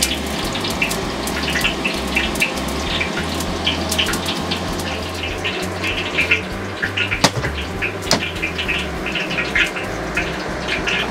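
Rain falling steadily: a constant rush with many small pattering drops. Two sharp clicks sound about seven and eight seconds in.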